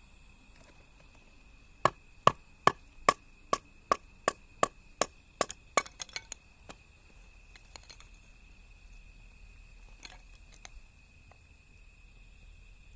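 Wood being chopped: about a dozen sharp, evenly spaced strikes, two to three a second, followed by a few lighter knocks, then it stops.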